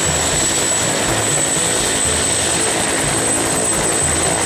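Turbine helicopter with a two-bladed main rotor running on the ground with its rotors turning: a steady rotor and engine noise with a thin, steady high turbine whine over it.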